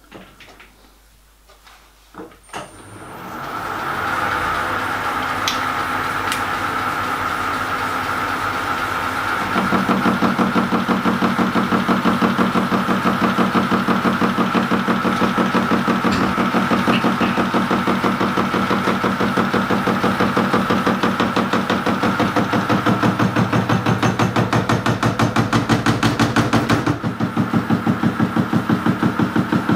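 A metal lathe starts up about three seconds in and runs. From about ten seconds in, the tool takes an interrupted cut across the ends of 431 stainless steel crank webs bolted in a fixture, with a loud, even knocking each time the work comes round.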